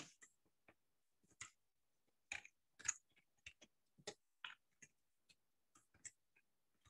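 Faint, irregular keystrokes on a computer keyboard: about a dozen separate clicks spaced unevenly.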